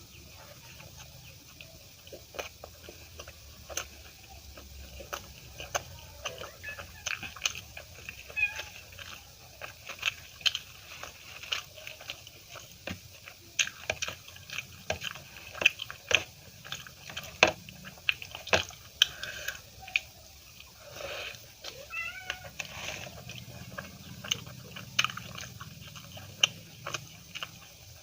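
Close-up chewing and wet mouth sounds of someone eating puri with butter paneer masala: a steady run of sharp smacks and clicks. Around three-quarters of the way through comes a short wavering, voice-like glide.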